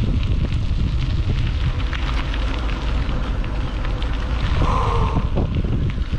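Steady low rumble of wind buffeting the microphone, with scattered crackles, as heard while riding in the open. A short tone sounds briefly about three-quarters of the way through.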